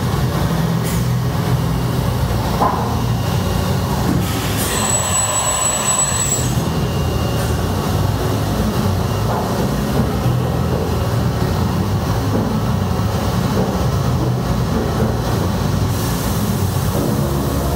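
Large horizontal CNC machining center running: a steady, loud mechanical rumble, with a thin high whine rising over it about four and a half seconds in for about two seconds. Near the end the sound settles into a steadier, deeper hum.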